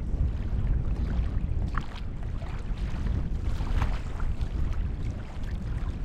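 Wind buffeting an outdoor microphone: a steady, uneven low rumble, with a few faint short higher sounds over it.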